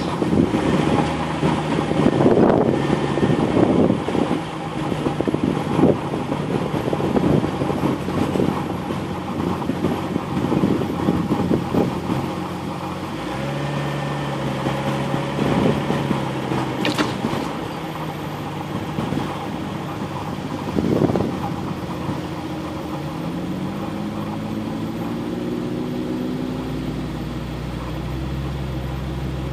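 Off-road vehicle's engine running while driving a rough sandy trail, with jolts and rattles over the bumps during the first dozen seconds. After that the engine hum is steadier, and its pitch climbs as it speeds up late on.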